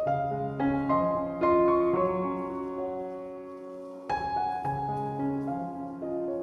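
Slow background piano music: single notes and chords struck and left to ring, with a new phrase beginning about four seconds in.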